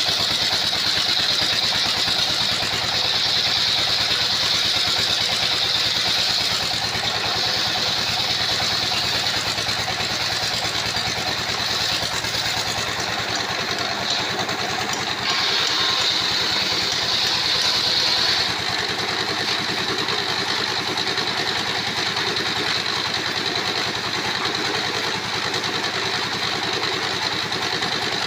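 Circular sawmill running steadily, with a high whine from the disc blade cutting wood that is strong for the first several seconds, eases off, and comes back strongly for a few seconds past the middle.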